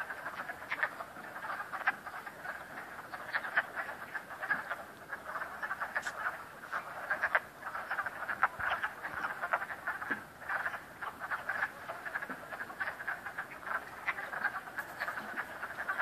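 A chorus of many frogs croaking at once, their short calls overlapping into a dense, continuous clatter.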